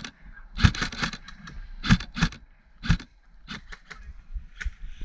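Irregular sharp clicks and knocks, about eight, some in quick pairs, with faint rustling between them.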